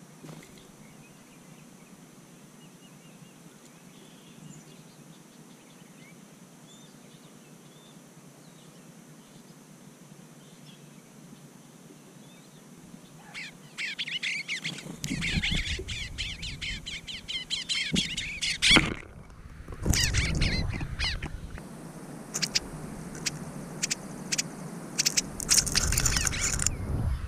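Small songbirds chirping, faint and scattered at first, then a dense, loud run of rapid chirps from about halfway through, over a low rumble.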